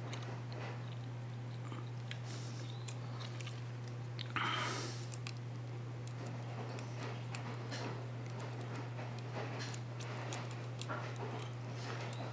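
Lock pick working the pins of a Mul-T-Lock pin tumbler cylinder under tension: scattered small clicks and scratches, with one louder scrape about four and a half seconds in. A steady low hum runs underneath.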